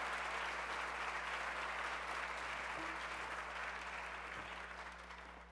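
Audience applauding, the clapping slowly fading and dying away near the end.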